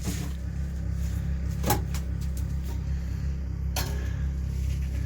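Steady low electrical or motor hum, with a couple of sharp knocks about two seconds apart.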